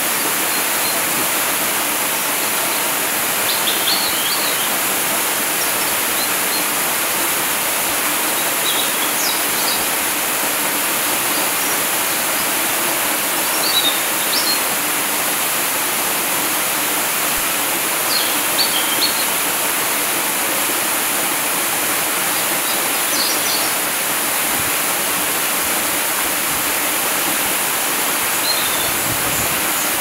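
Waterfall pouring steadily into a rocky pool, a constant rushing noise. A bird chirps briefly now and then, about six times.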